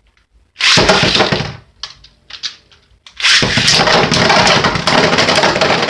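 Two Beyblade spinning tops, one of them 3D-printed, clashing and grinding against each other in a plastic stadium. A loud rattling burst lasts about a second, then after a short lull a longer stretch of rapid knocking and scraping.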